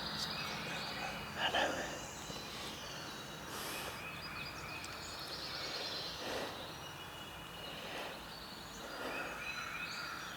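Woodland birdsong: several songbirds singing repeated chirping phrases, with a few louder short calls about 1.5, 6 and 9 seconds in.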